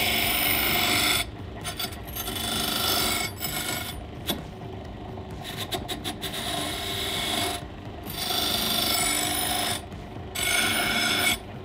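Bench grinder running steadily while a small metal piece is pressed freehand against its wheel in about five separate passes of a second or so each, grinding detail into cut-out teeth.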